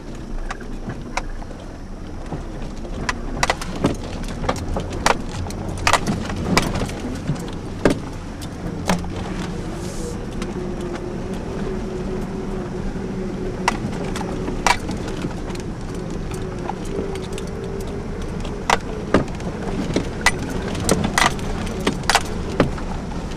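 Cab interior of a 2002 GMC Sonoma ZR2 with its 4.3-litre V6 running steadily at low speed on a rough dirt trail. Frequent, irregular sharp knocks and rattles come from the truck bouncing over ruts and potholes.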